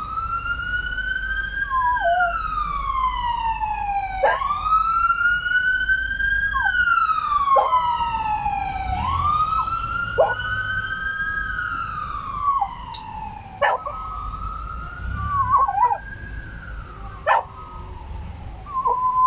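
An ambulance siren wailing in slow rising and falling sweeps, about four cycles, while a dog howls along in short bending cries between the sweeps. A few sharp clicks are heard over it.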